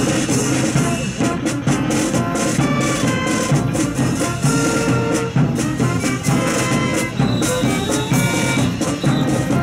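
Music with a steady drum beat and held brass-like tones, playing as the accompaniment to a fancy drill display.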